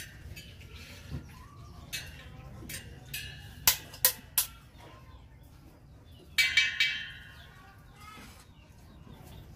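Chickens clucking, with sharp metal clinks, three in quick succession about four seconds in, from a spoke wrench working the spokes of a motorcycle rim in a truing stand.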